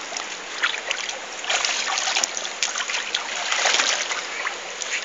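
River water rushing over rocks, with splashing from a child moving in the current, louder in short surges.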